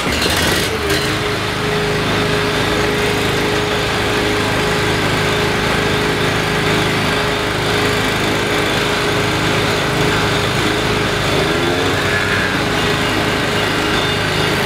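Garden shredder running steadily with an even hum, chewing up cannabis plants fed into its hopper.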